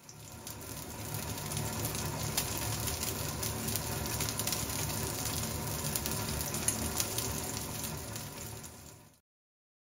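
Marbled beef steak sizzling in hot oil in a frying pan: a steady frying crackle with fine pops, fading in at the start and fading out to silence shortly before the end.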